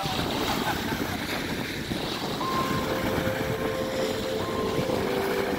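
Wind buffeting the microphone over small lake waves washing onto a pebble shore. About halfway through, soft held music tones come in underneath.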